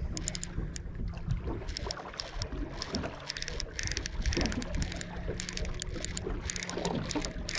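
Water slapping and lapping against a small boat's hull in quick, irregular ticks, over a faint low hum that comes and goes.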